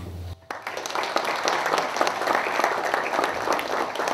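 An audience applauding, a dense, even patter of many hands clapping that starts about half a second in.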